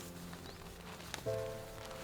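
Background music of sustained chords, with a new chord coming in about a second in.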